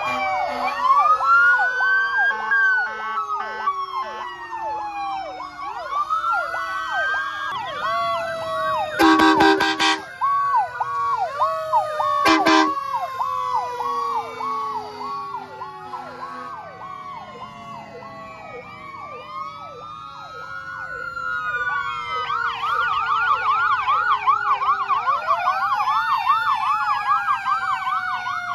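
Several fire trucks' sirens sounding at once as they pass: electronic sirens yelping and wailing over one another, with long slowly falling wails. An air horn blasts twice, a few seconds apart, about a third of the way in; the yelping grows louder again near the end.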